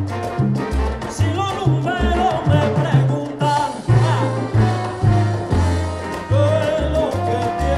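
Live salsa band playing: a pulsing bass line under congas, timbales and maracas, with singing over it.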